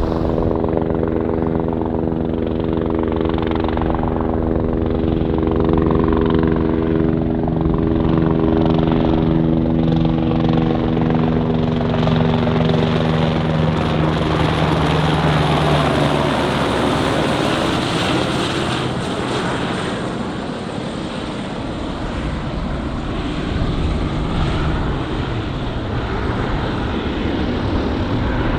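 Aircraft passing: a steady, pitched engine and propeller hum that fades out about halfway through, while a broad rushing noise swells near the middle, with a faint high whine that slowly falls.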